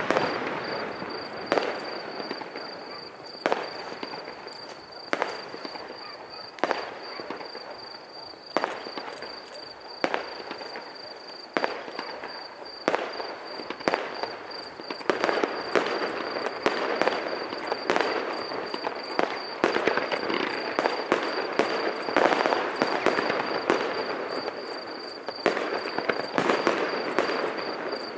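Aerial fireworks shells bursting with sharp bangs, at first about one every second and a half. From about halfway through they come thicker, mixed with crackling.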